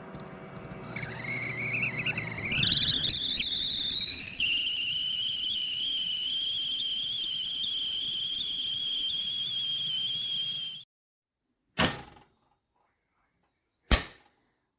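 GGC stainless steel stovetop kettle whistling as it comes to the boil: the whistle wavers and climbs in pitch, settles into a steady high tone after about four seconds, then cuts off suddenly about eleven seconds in. Two sharp clicks follow.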